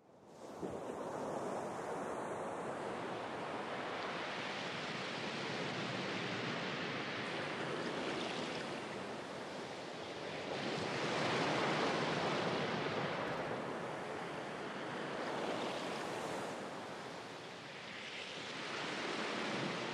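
Steady rushing, surf-like water noise that swells and ebbs every few seconds.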